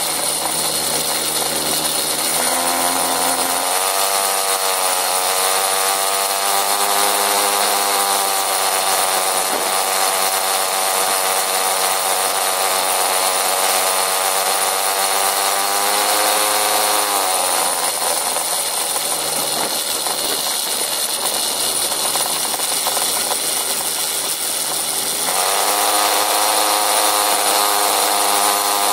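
Small motorcycle engine running under way, a buzzy, saw-like drone. Its revs climb about three seconds in, ease off around seventeen seconds, and pick up again around twenty-five seconds.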